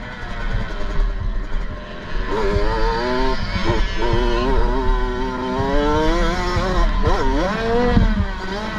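Kawasaki KX65's two-stroke single-cylinder engine ridden flat out: quieter for about the first two seconds, then revving hard, its pitch climbing and dipping several times as the throttle is chopped and opened again. Wind rumbles on the bike-mounted microphone.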